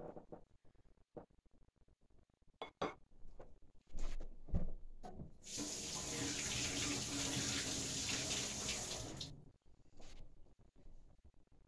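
Kitchen tap running for about four seconds, water rushing into a sink, after a few light knocks and clicks.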